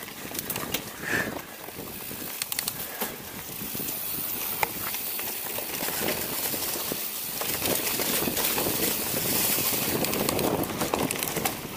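Giant Trance 29 mountain bike rolling fast down a dirt singletrack: tyre and wind noise with scattered clicks and rattles from the bike over bumps, getting louder after a few seconds.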